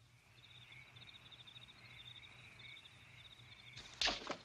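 Crickets chirring: a fast-pulsing, high trill, steady until near the end, when a brief louder noise cuts in.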